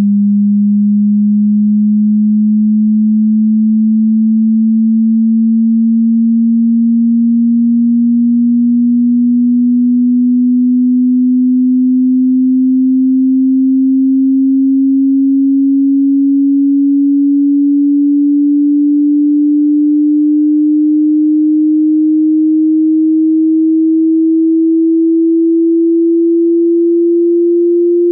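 Pure sine test tone gliding slowly and steadily upward in pitch, low and humming, as part of a hearing-test sweep across the range of human hearing.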